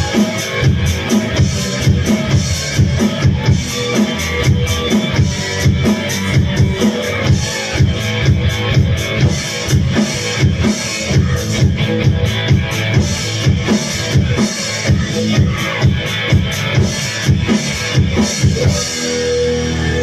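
Rock music with a steady drum beat, about two hits a second, played on an electronic drum kit over a track with electric guitar. The drums stop about a second before the end, leaving a held, ringing guitar chord.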